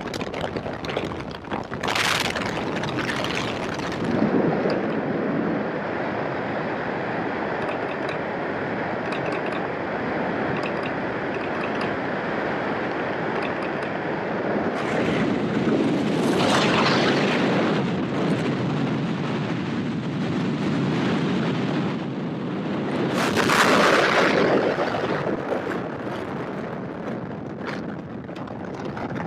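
Wind rushing over a skydiver's camera microphone in freefall: a steady noisy rush that swells louder three times, a couple of seconds in, about midway and again later on.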